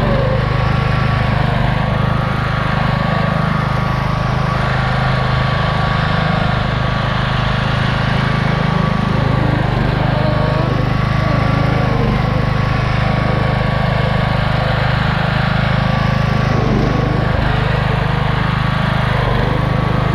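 Race lawn mower's small engine running steadily at a loud level, with a thin high whine over it that dips slightly in pitch a couple of times.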